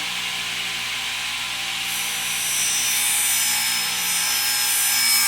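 Table saw motor and blade running steadily. About two seconds in, the blade starts cutting into a piece of wood, adding a loud, high-pitched rasping whine. It is a shallow first cut, with the blade set only just above the table.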